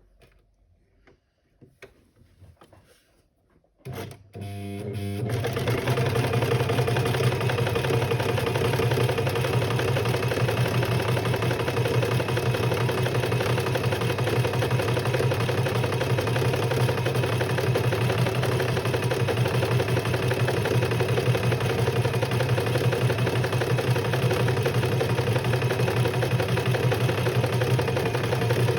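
A few faint handling clicks, then about four seconds in a sewing machine starts up and runs steadily at speed, stitching without a break.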